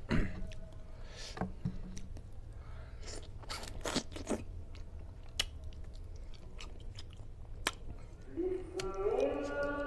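Close-up mouth sounds of eating a gulai tilapia head by hand: wet chewing, sucking meat off the fish bones and fingers, and lip smacks, with several sharp clicks. A wavering pitched sound rises near the end.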